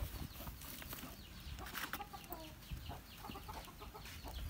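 Chickens clucking, with a run of short, high chirps repeating throughout.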